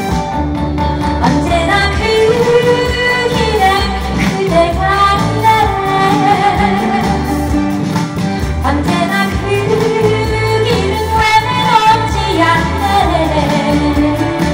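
A woman sings a Korean trot song into a microphone over amplified backing music with a steady beat.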